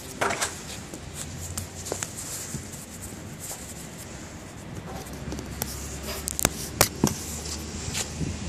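Handling noise from the camera being set up close to the lens: scattered sharp clicks and knocks with rustling. A low steady hum comes in about halfway through.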